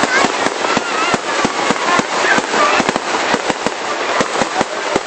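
Fireworks going off in quick, uneven succession: many sharp pops and bangs, several a second, over a constant crackling haze.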